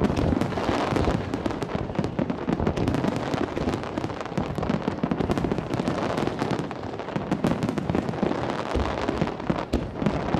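Fireworks finale barrage: many shells bursting in quick succession, their reports and crackling overlapping into a continuous stream with no pauses.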